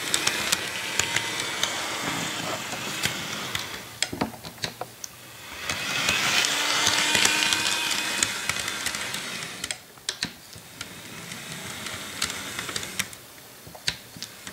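HO scale ScaleTrains Tier 4 GEVO model locomotive running along the track: a steady whirring motor and gear drive with light clicks of the wheels over the track, swelling to its loudest as it passes close about six to eight seconds in and dropping away around ten seconds.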